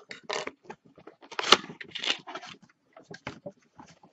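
Pocket knife slitting the packing tape on a cardboard box, and the cardboard flaps being pulled and torn open, in irregular scraping and rustling bursts with one sharp crack about a second and a half in.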